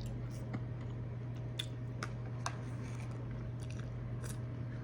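A person chewing a mouthful of rice with seafood, with scattered wet mouth smacks and clicks over a steady low hum.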